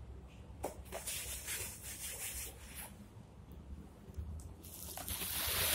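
Kinetic sand and plastic toys being rubbed and scraped: a crumbly hissing scrape in short patches, then a louder, longer rubbing hiss near the end.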